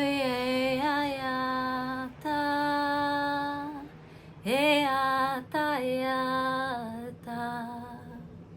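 A woman singing long, held notes alone, in about five phrases with short breaks. Each note slides up into pitch at its start, then holds steady.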